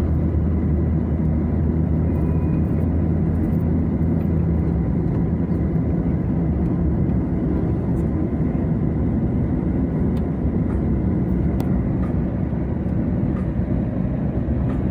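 Steady engine and road noise of a vehicle driving along a highway, with a low engine hum that is strongest in the first few seconds.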